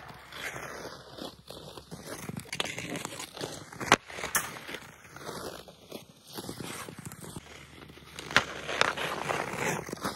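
Ice skate blades carving and scraping across rough outdoor ice in swelling strokes, with a few sharp clacks of a hockey stick striking a puck.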